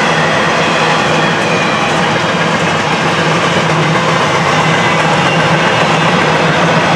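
Long freight train of empty intermodal well cars rolling past on steel rails: a steady rush and rattle of wheels and cars.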